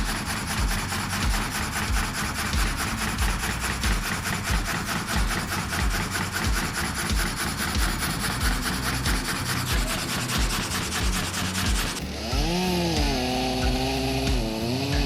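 Saw blade cutting through wood: a steady, dense rasping with a regular low pulse. About twelve seconds in it cuts off abruptly, and a wavering pitched tone takes over.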